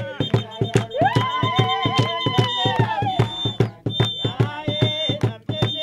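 A group of Basotho women singing a traditional song. A lead voice holds long, gliding notes over a fast, steady beat.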